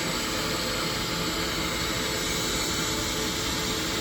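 Automated key-duplicating machine running with a steady whir while it cuts a copy of a key.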